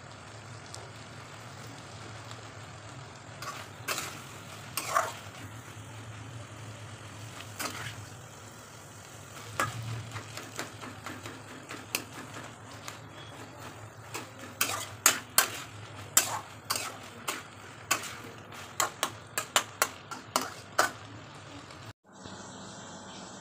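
Potato, bitter gourd and aubergine frying in a nonstick pan, sizzling softly as a spatula stirs and scrapes them, with sharp clacks of the spatula on the pan that come thick and fast in the second half. The sound cuts off suddenly near the end.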